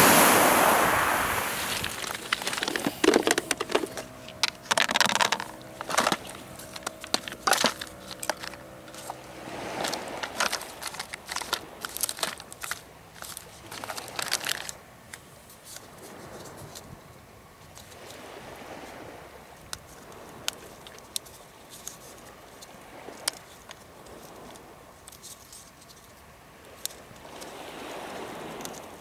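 A wave washing up the shingle, then a run of sharp clicks and snaps from a cheap plastic snaplock tackle box being opened and rig winders handled, with gentle waves lapping on the pebbles between. The clicks thin out after about fifteen seconds, leaving mostly the lapping.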